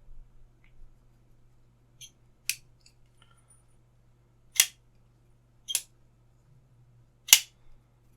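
Hoo Knives V2 slipjoint pocket knife blade being flicked open by its thumb stud and snapped shut against its spring: four sharp snaps a second or two apart.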